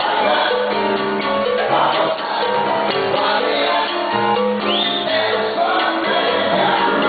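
A Latin dance orchestra playing a guajira live, a full band sound with hand percussion such as congas among the instruments. About two-thirds of the way through, a short upward glide rises above the band.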